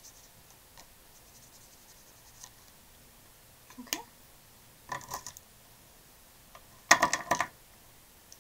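Plastic water brush pens clicking and clattering as they are handled and set down: a few light knocks, then a louder rattle about seven seconds in.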